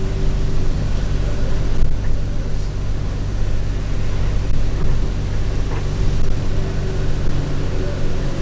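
Alexander Dennis Enviro200 single-decker bus heard from inside while running, with a steady low engine drone and road noise. A faint high turbo whine sits over it, with a few light rattles.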